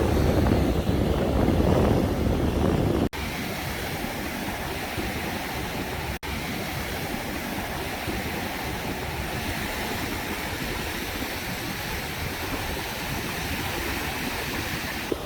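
Ocean surf washing steadily onto the beach, with wind buffeting the microphone for the first three seconds. The sound drops out sharply twice, about three and six seconds in, before settling into an even wash of waves.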